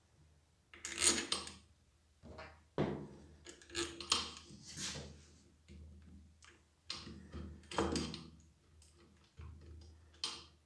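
Metal pump and steel screws of a Nilfisk E 140.3 pressure washer being handled and fitted onto the motor: irregular clinks, knocks and scrapes of metal parts.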